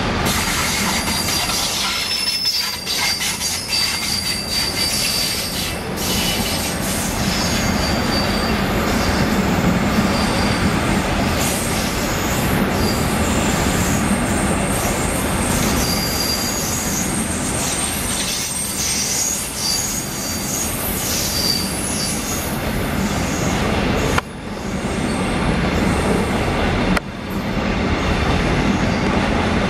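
A long rake of BCACBM covered auto-carrier freight wagons rolling past at speed. The wheels on the rails make a continuous loud rumble and clatter, with intermittent high-pitched wheel squeals over it.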